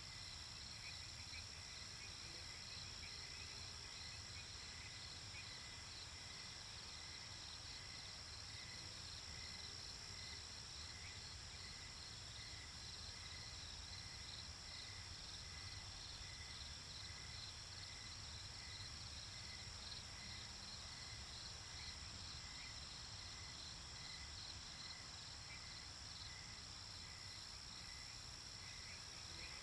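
Crickets chirping in steady, regular pulses over a continuous hiss of white noise and a low rumble, faint and unchanging.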